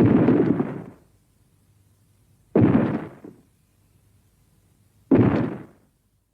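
Three sudden heavy booms, evenly spaced about two and a half seconds apart, each dying away within a second: monster sound effects.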